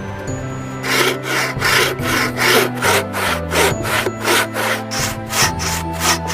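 Hand saw cutting wood in quick back-and-forth strokes, about three a second, starting about a second in, over soft background music.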